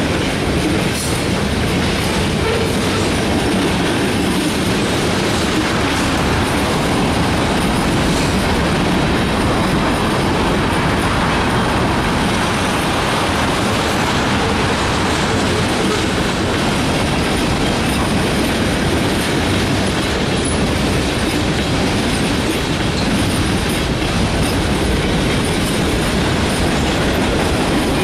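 Freight cars of a passing train rolling by on the track, their wheels on the rails making a loud, steady noise.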